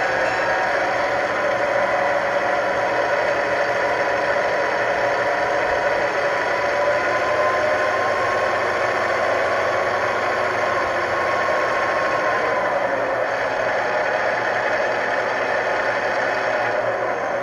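Model diesel locomotive sound decoder (LokSound 5) playing an E8A's prime mover running through a small Tang Band speaker, a steady engine drone whose pitch rises slightly partway through and then settles back.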